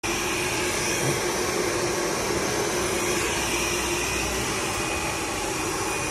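Semi-automatic filter bag body welding machine running: a steady blower-like rushing noise with a low hum and a higher whine.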